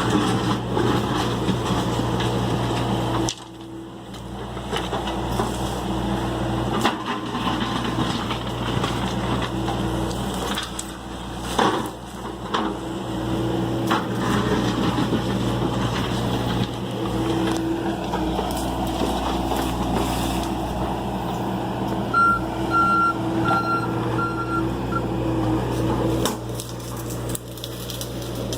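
John Deere excavator's diesel engine running steadily as it works, with scattered knocks and clanks. A run of about five short, high beeps from a warning alarm sounds about two-thirds of the way through.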